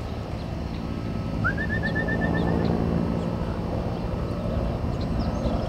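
A bird calls once, a rising note followed by a quick run of about eight notes at one pitch, about a second and a half in, over a steady low rumble with faint chirps from other birds.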